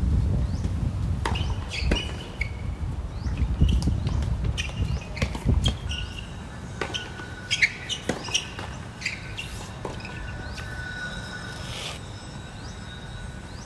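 Tennis rally: sharp pops of rackets striking the ball, irregularly spaced, with birds chirping. A low rumble fills the first half and fades out about halfway through.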